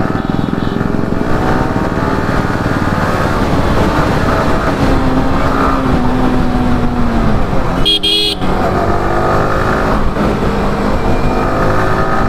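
Sport motorcycle engine running through city traffic, heard from the rider's seat, its pitch falling and rising as it slows and speeds up. A vehicle horn honks once, briefly, about eight seconds in.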